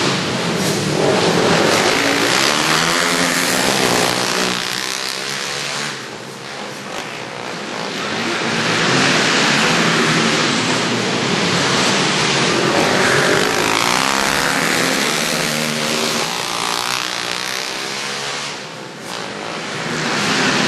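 Several racing quads (ATVs) running hard round a dirt flat track, engines revving up and down through the turns. The sound swells and fades as the pack passes, dropping briefly about a third of the way in and again near the end.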